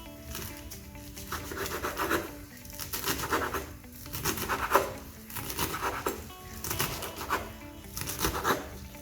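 Knife chopping fresh herbs (coriander, mint and parsley) on a board: rasping strokes in short bursts about once a second, over background music.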